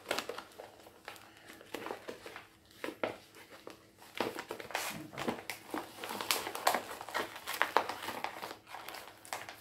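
Clear plastic packaging of a cross-stitch kit crinkling and rustling as it is handled and folded, in irregular rustles that grow busier about four seconds in.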